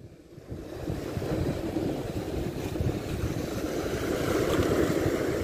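Sea waves breaking and washing over shoreline rocks, with wind blowing on the microphone; a steady rushing noise that comes up about half a second in.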